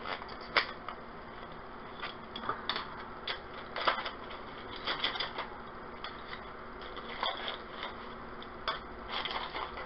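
Light, irregular clicks, taps and rustles of small craft supplies being handled on a table.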